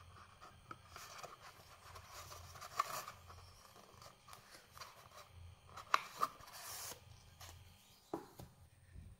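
Cardboard product box with a clear plastic window being handled: rustling and scraping, with a few sharp taps, the loudest about two-thirds of the way through.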